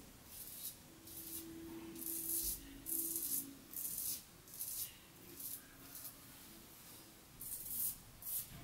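Stainless steel double-open-comb safety razor scraping through lathered stubble in short, repeated strokes, a dry rasp with each stroke, about one a second.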